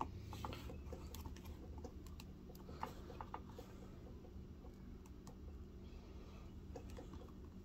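Faint, scattered small plastic clicks and taps as a Marvel Legends action figure is handled and posed on a tabletop, over a low steady hum.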